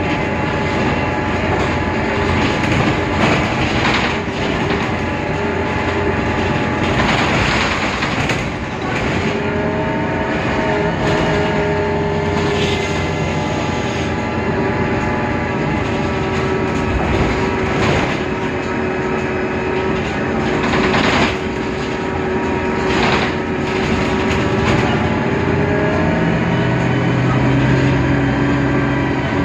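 Mercedes-Benz Citaro O530 Ü bus under way: the OM 906 hLA diesel and Voith DIWA automatic gearbox drone with a steady whine, the unusual sound this bus is noted for. The whine's pitch shifts near the end, and a few knocks and rattles from the body come through.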